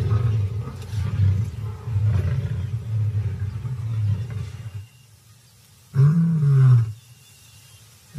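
Lions growling in a fight, a continuous low, pulsing growl for about five seconds. After a short pause, one loud drawn-out call that rises and then falls in pitch.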